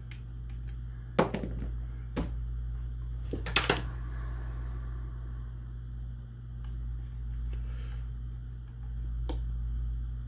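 A few sharp clicks and taps of small metal gun parts and a screwdriver being handled while a trigger-plate screw is fitted, over a steady low hum.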